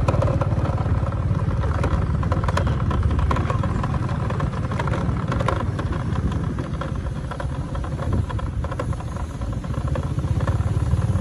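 Small motorcycle engine running steadily while riding, with a few clattering rattles along the way.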